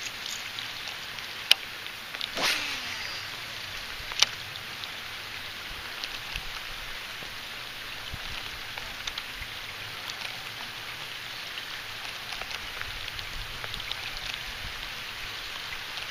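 Steady rain falling, a dense patter of small drops, with a few sharp clicks in the first few seconds.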